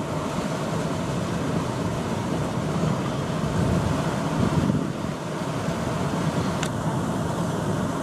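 A large wildebeest herd splashing across a river: a steady, dense, low noise of churning water and massed animals.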